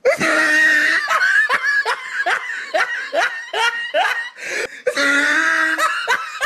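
A man laughing in a run of short repeated bursts, about two to three a second, with a longer drawn-out vocal sound at the start and again about five seconds in.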